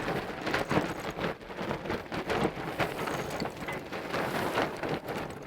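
Wind and water noise on the deck of a sailing yacht under way, with irregular rustling and knocking as the mainsail is reefed and the reefing line is hauled in by hand.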